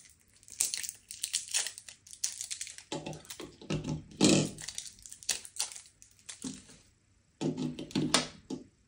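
Crinkling and rustling handling noise as batteries are unwrapped and handled, then a few knocks and clicks near the end as batteries are pressed into the small plastic battery compartment of a Zoom F2-BT recorder.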